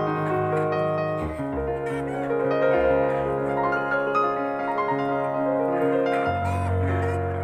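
Background piano music: slow, sustained chords, the bass changing twice.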